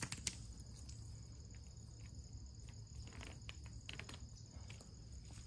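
Outdoor insects chirring steadily in two high, even tones, with a sharp click right at the start and a few fainter clicks and taps about three to four seconds in.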